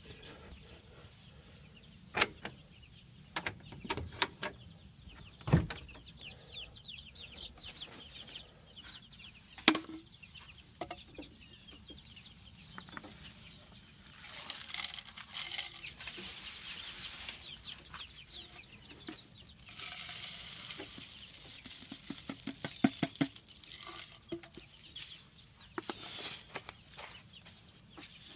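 Backyard chickens clucking, with several sharp knocks scattered among the calls and a quick run of taps about 23 seconds in.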